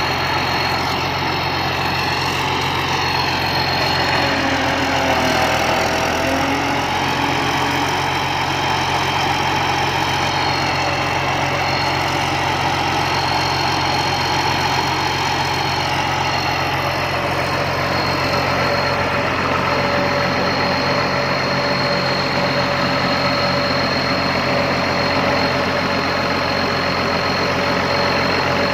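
Rice combine harvester's engine running steadily, with a steady high whine above it and a few brief shifts in pitch about five seconds in.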